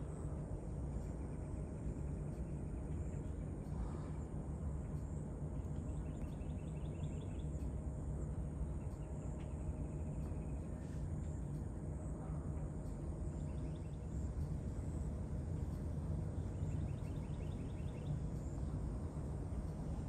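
Outdoor morning ambience: a steady low hum, with faint insect trills recurring every few seconds.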